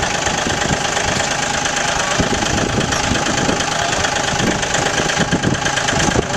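John Deere compact tractor's engine running steadily at idle with an even knocking clatter.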